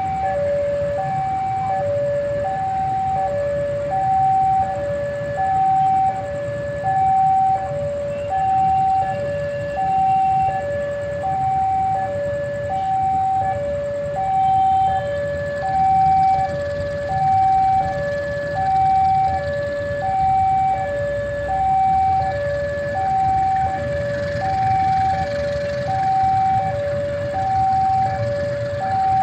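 Railway level-crossing warning alarm sounding a steady two-tone alternation, high then low, about once a second, over a low rumble.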